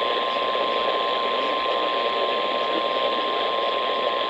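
Steady radio static hiss from weak reception of an emergency-alert broadcast, with a thin steady whistle near 1 kHz running through it.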